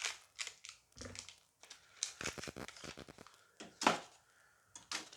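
Dice Masters booster pack's foil wrapper crinkling and being torn open by hand: a run of irregular crackly rustles, the loudest about four seconds in.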